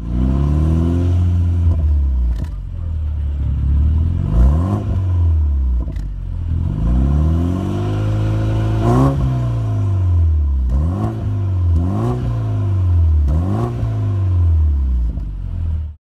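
BMW 228i's turbocharged 2.0-litre four-cylinder free-revving through an Active Autowerke Signature aftermarket exhaust, heard at the twin tailpipes. Three slower revs rise and fall in the first half, then three quick blips near the end.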